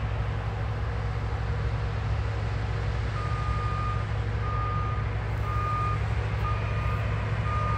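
Steady low drone of a New Holland combine harvester and tractor working across the field. From about three seconds in, a reversing alarm beeps about once a second, each beep about half a second long.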